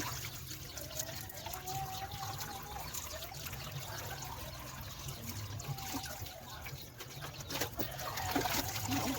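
Water trickling and pouring in a steady stream while a dog is bathed, with a few faint clicks near the end.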